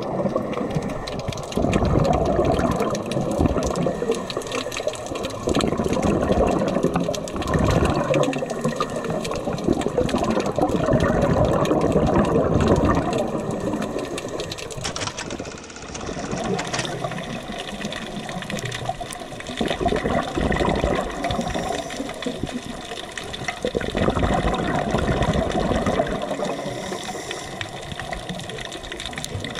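Underwater sound of a scuba diver breathing through a regulator. Bursts of bubbling exhaust rise and fade every few seconds, with quieter gaps in between.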